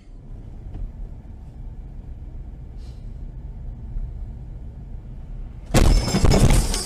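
Low steady rumble of a car's engine and tyres on a snowy road, heard from inside the car. A little before the end comes a loud crash lasting about a second as the car runs into another car.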